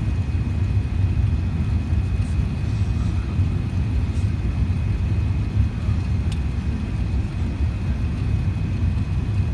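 Airliner cabin noise on approach: a steady low rumble of the engines and airflow over the wing, heard from a window seat. A faint, thin high tone holds steady throughout.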